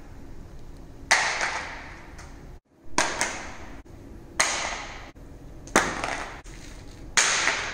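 A Cat S52 rugged smartphone, with a rubbery back and an aluminium frame, dropped onto a concrete floor again and again. It lands five times, about a second and a half apart, with one quick rebound hit, and each sharp clack rings out in an echo.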